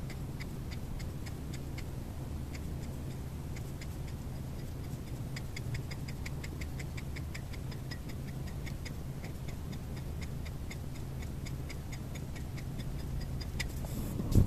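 Fast, even ticking, about three to four ticks a second, over a steady low hum, with a couple of louder knocks near the end.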